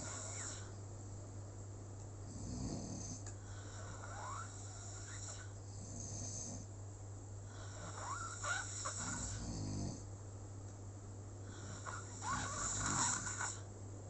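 Slow, even snoring, about one snore every three seconds. Each breath has a thin whistling edge, and a steady low hum runs underneath.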